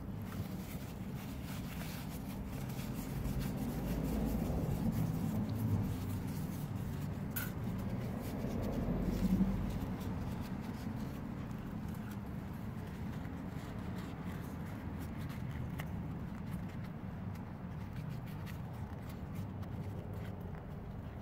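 Kitchen paper towel rustling and rubbing as it is handled, folded and twisted by hand, then pressed into a small metal tin as a wick for an oil burner.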